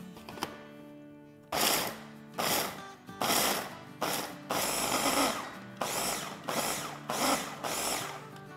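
Electric food chopper run in about seven short pulses, grinding roasted nuts and seeds into a coarse powder. The pulses start about a second and a half in.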